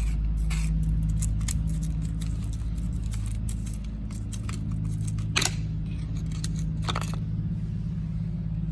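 Light clicks and scrapes of plastic cell caps and the battery case being handled while its cells are checked, with one sharp click about five and a half seconds in and another near seven seconds. A steady low mechanical hum runs underneath.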